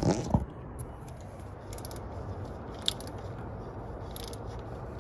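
Hand ratchet clicking in short bursts about a second apart as it works a tight, Loctited lower bolt of the N55 diverter valve loose, over a steady low hiss. Two sharp knocks of tool against metal come right at the start.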